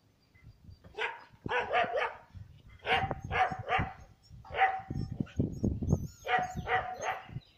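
Small dog barking in quick runs of three or four barks, with short pauses between the runs.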